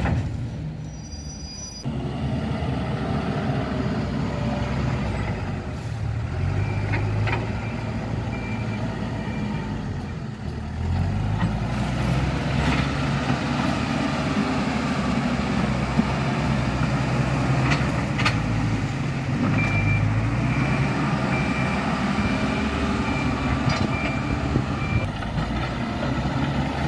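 Diesel engines of heavy road-building machines running at work, with a reversing alarm beeping in two spells of steady, evenly spaced beeps.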